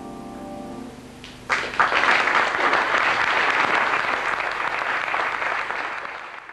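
The final grand-piano chord of a song dies away. About a second and a half in, an audience breaks into applause, which keeps up steadily and starts to fade near the end.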